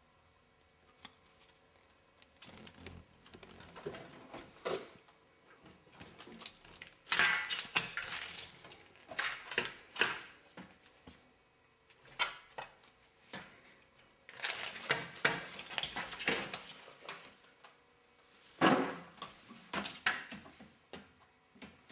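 Horizontal window blinds rattling and clattering in irregular bursts as a cat paws and jumps at them, with quieter stretches in between.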